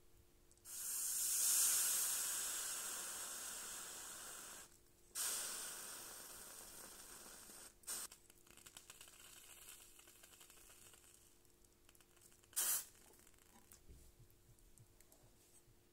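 Hot soldering iron tip sizzling against a water-soaked sponge, the water flashing to steam as the switched-off iron is cooled. A long hiss that fades away, a second shorter hiss, then two brief ones.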